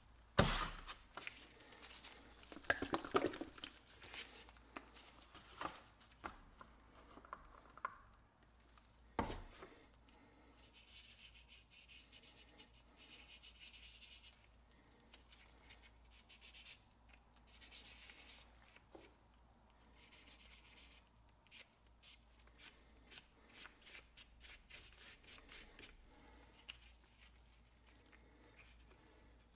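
Quiet handling noise from nitrile-gloved hands: rubbing and rustling, with a few light knocks and clicks, the sharpest in the first few seconds and another about nine seconds in.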